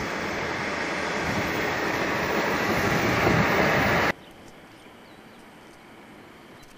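KiHa 40 diesel railcar moving off close by, engine and wheels on the rails making a loud running noise that grows louder until it cuts off abruptly about four seconds in. Faint outdoor background noise follows.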